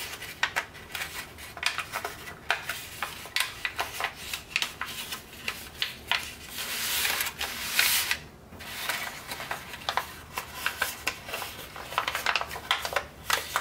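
Tant paper crinkling and crackling under fingers as the pleats of an origami tessellation are folded and pressed flat, in irregular crisp crackles, with a longer rub of paper sliding on paper about seven seconds in.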